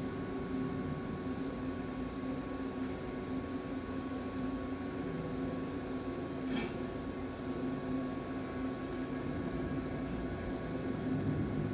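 Steady machine hum with a constant drone and background hiss, and one faint click about six and a half seconds in.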